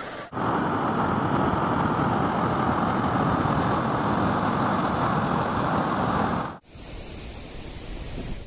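Swollen, muddy river in flood rushing past: a loud, steady rush of water that cuts off suddenly about six and a half seconds in, leaving a fainter hiss.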